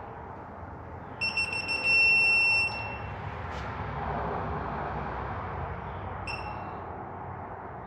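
Digital torque-angle wrench beeping on the main cap bolts of a Ford 3.5 EcoBoost: a quick run of high beeps about a second in, then one longer steady beep as the 180-degree angle is reached, and a single short beep later on.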